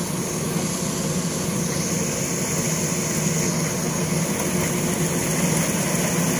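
Rice combine harvester's engine running steadily as the machine cuts through the paddy, a constant low hum that grows slightly louder toward the end.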